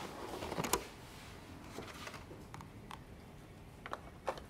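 Scattered light clicks and knocks of plastic intercom packaging being handled, the loudest a little under a second in.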